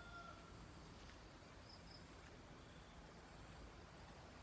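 Near silence with a faint, steady, high-pitched insect drone. A rooster's crow trails off at the start.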